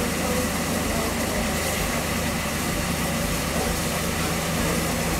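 LNER A4 Pacific steam locomotive standing in steam, giving a steady hiss of escaping steam over an even low hum.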